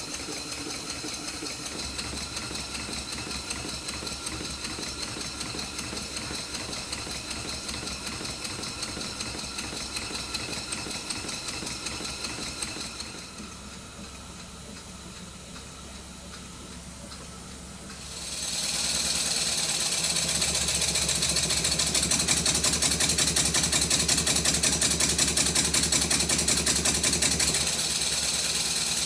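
Stuart Twin Victoria twin-cylinder model steam engine running on compressed air with a rapid, even beat. About eighteen seconds in it becomes much louder as it runs at higher speed under load, where its valve timing is not yet right.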